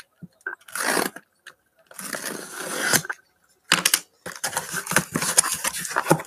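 Sealed cardboard case being torn open and its boxes handled: separate bursts of ripping and rustling, then a busier run of quick clicks and scrapes in the second half.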